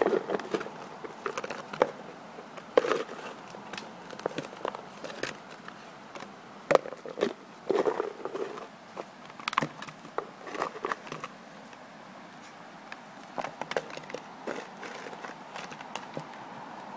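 Saint Bernard puppy playing with his food bowl on gravel: irregular knocks, clatters and scrapes of the bowl against the ground, mixed with crunching steps. The sounds grow sparser after about eleven seconds.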